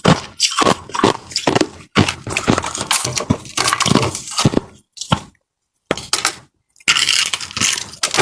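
Close-miked crunching and cracking of frozen ice being bitten and chewed, a rapid run of sharp crunches with a brief dead stop about five seconds in.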